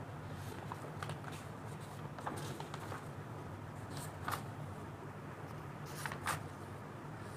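Pages of a thick printed book turned and brushed by hand: soft, scattered paper rustles and flicks, a couple of them louder about four and six seconds in, over a faint steady hum.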